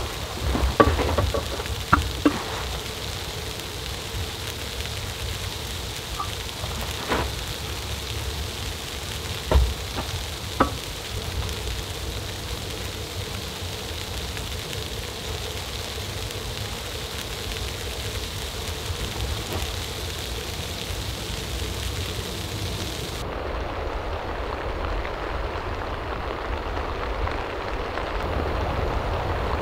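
Steady rain falling, with a few sharp knocks and taps in the first seconds and again around seven and ten seconds in. About three-quarters of the way through, the sound changes abruptly to a lower, duller rushing that grows slightly louder.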